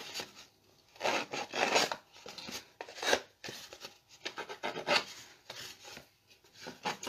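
Paper distresser blade scraping along the edge of cardstock in several short rasping strokes with pauses between them, roughing and fraying the edge.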